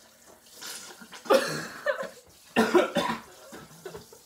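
A young woman coughing and spluttering in two loud fits about a second apart, a reaction to a mouthful of a foul-tasting drink.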